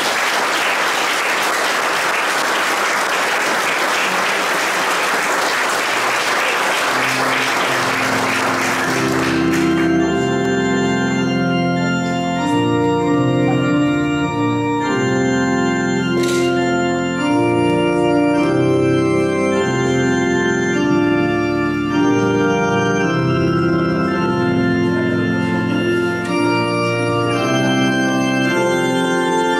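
Audience applauding for about the first ten seconds; about seven seconds in an organ comes in playing sustained chords, and it goes on alone once the applause dies away.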